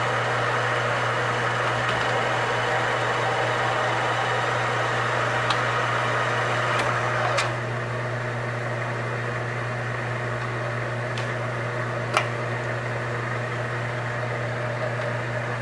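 Metal lathe running through a light single-point threading pass, the tool chasing the thread in an aluminium part. About seven seconds in, a click comes and the louder running sound drops to the lathe's steadier hum as the pass ends. A few sharp ticks follow.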